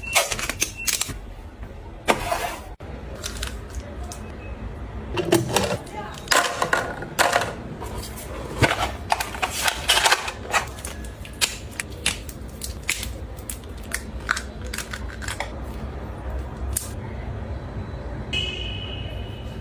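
Irregular clicks and taps of small plastic and glass toiletry items being handled and set down: floss picks in a ribbed glass cup and plastic ampoule vials in a metal tin. A brief high tone sounds near the end.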